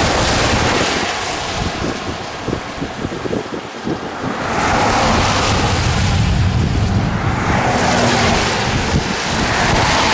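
Strong, gusty wind buffeting the microphone: a loud rushing roar that eases for a couple of seconds, then picks up again about halfway through.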